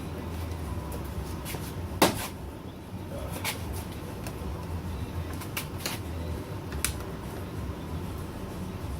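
Plastic clips of a car's side mirror snapping into place: one sharp snap about two seconds in, then several lighter clicks. A low steady hum runs underneath.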